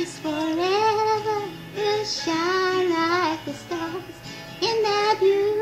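A high singing voice performing a devotional song over soft backing music, in long held notes with vibrato, with a short break about four seconds in before the next phrase.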